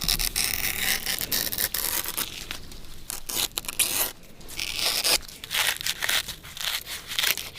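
Fibrous palm sheaths being torn and stripped by hand, a quick run of short rips.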